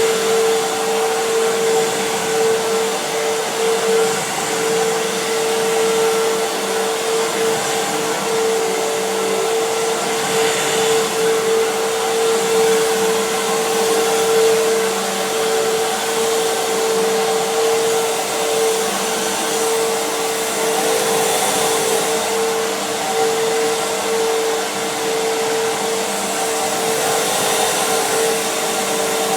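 Fantom Fury vacuum cleaner running steadily, its motor giving a high, even whine over the rush of airflow. At the very end it is switched off and the whine starts to fall in pitch.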